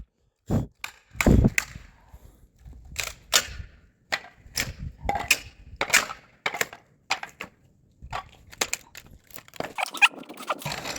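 Pallet wood being handled: a series of sharp, irregular wooden knocks and clatters, one or two a second, with the chainsaw off.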